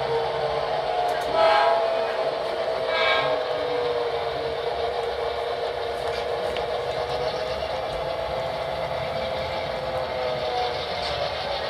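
Sound unit of an HO scale model diesel locomotive: a steady engine sound whose pitch sags and rises slightly as the train moves, with two short horn toots about one and a half and three seconds in.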